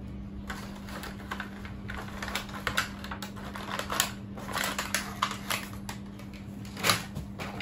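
Clear plastic toy packaging tray being handled: irregular light clicks and crackles as a flying doll is fitted back into it, with a louder knock about seven seconds in as the tray and box are picked up.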